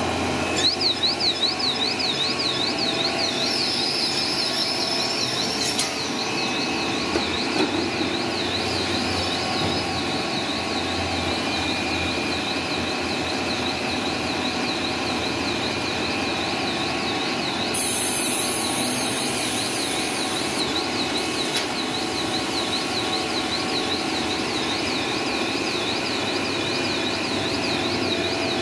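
Cast stretch film production line running at speed, a steady machine drone with a high tone warbling up and down about three times a second. A brief high hiss comes a little past the middle.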